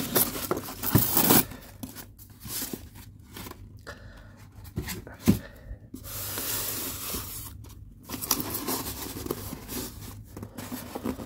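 Hands unpacking a polystyrene foam box: a fabric strap is pulled free, then the foam lid and tray rub and scrape against the box while plastic wrap rustles. The loudest scraping comes in the first second or so, and there is a single knock about five seconds in.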